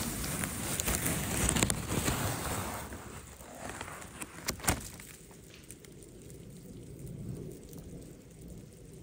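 A hand sweeping wet snow and sleet off a Dyneema tarp: a rough scraping rustle for the first three seconds or so that fades out, with one sharp tap near five seconds, then only a faint steady hiss.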